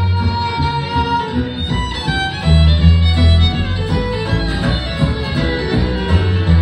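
Live bluegrass band playing an instrumental break between verses: fiddle carrying the lead over acoustic guitar, banjo, mandolin and a walking upright bass.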